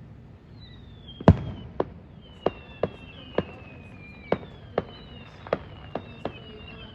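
Fireworks display: a quick string of about a dozen sharp bangs from bursting shells, the loudest about a second in, with thin high whistles falling in pitch between them.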